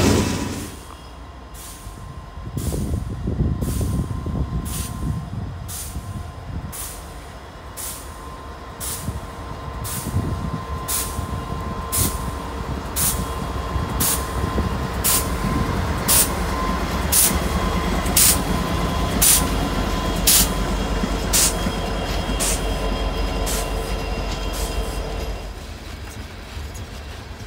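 Freight train passing, led by a BNSF GE C44-9W and an EMD SD70MAC diesel locomotive, then covered hoppers: a low diesel rumble that builds a few seconds in, with sharp regular clicks, about two a second at first and about one a second later, and a faint steady squeal. It quietens near the end.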